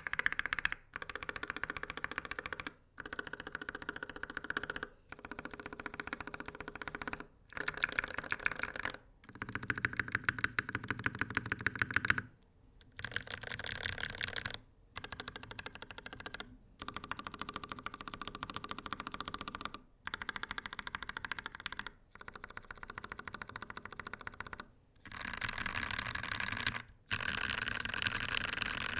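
NK65 mechanical keyboard with Gateron Ink Red linear switches on an aluminum plate, its modifier keys pressed repeatedly in rapid runs of a second or two with short pauses between; the stabilizers have been freshly fixed. About 25 seconds in, the clicking turns brighter and louder as the regular key rows are typed.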